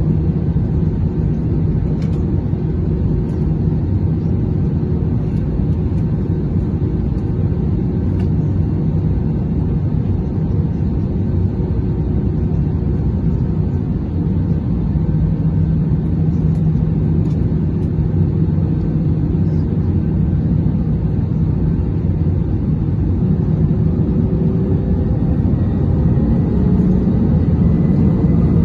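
Airbus A320 jet engines and cabin rumble heard from inside the cabin while the airliner taxis onto the runway: a steady low rumble with a constant hum, growing a little louder from about halfway. Near the end a faint rising whine comes in as the engines begin to spool up for takeoff.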